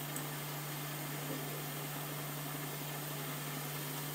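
Rice-flour chakri deep-frying in hot oil in a steel pan: a steady sizzle of the oil bubbling around the freshly added spirals, over a steady low hum.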